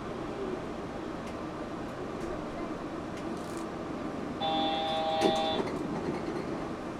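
Steady hum and rumble inside a Yurikamome automated transit train car pulling into a station. About four and a half seconds in, an electronic door chime sounds for about a second, with a sharp click near its end, as the doors are about to open.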